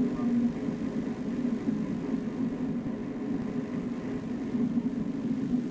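Machinery running steadily, a continuous low humming din with no breaks.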